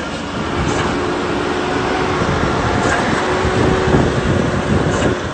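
Spedo Fruipick almond harvester and leaf-separating machine running, with a steady hum over the clatter of leaves, twigs and almonds rattling through.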